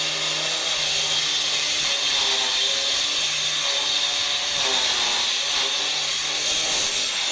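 A steady, hissing mechanical noise, like a power tool running.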